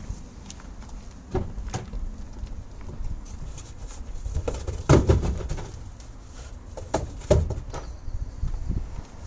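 Empty cardboard banana boxes being pushed and set down in a hatchback's boot: several hollow knocks and scuffs, the loudest thump about five seconds in and two more knocks near the end.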